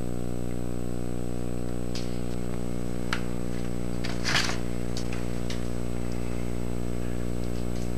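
Engine lathe running with a steady low mechanical hum, broken by a few brief high-pitched scratches around the middle.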